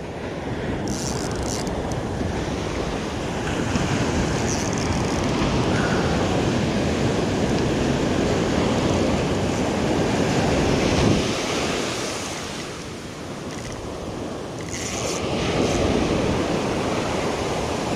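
Ocean surf breaking and washing on the shore, a steady rush that swells for several seconds, eases off about two-thirds of the way through, then builds again.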